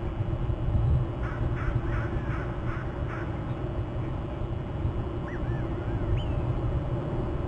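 A bird calling a quick series of about six harsh notes, then a few short rising-and-falling whistled notes a couple of seconds later, over a steady low rumble.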